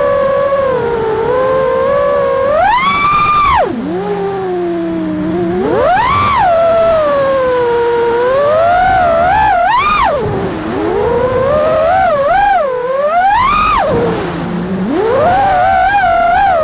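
FPV racing quadcopter's brushless motors whining, the pitch swinging up and down with the throttle. There are sharp rises at about three, six, ten and thirteen seconds in, each followed by a quick drop.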